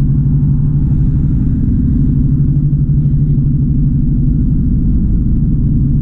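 Honda Civic driving along the road, heard from inside the cabin: a steady low drone of engine and road noise.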